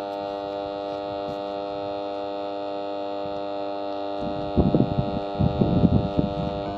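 Electric lawn mower motor with a burnt-out winding running on mains power, giving off a steady, buzzing electrical hum. About four seconds in, loud irregular crackling breaks out for two seconds or so, as the failing motor burns out.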